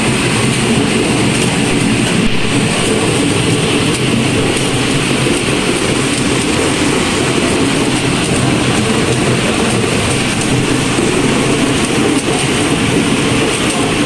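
Easyfun EF-WB01 ball washing machine running: its suction blower draws plastic play balls through the hoses and they clatter through the washer, a loud steady mechanical din with a thin high whine over it.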